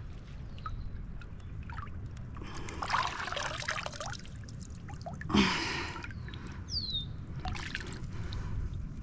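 Shallow river water trickling and sloshing around a wader's legs, with a splash about three seconds in and a louder, sharper splash about five and a half seconds in.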